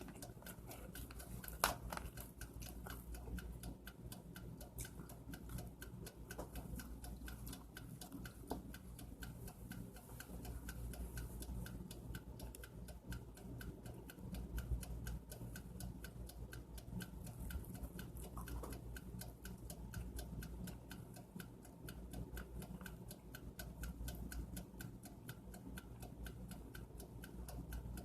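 Steady, rapid ticking, several ticks a second, over a low hum, with a sharper click about two seconds in.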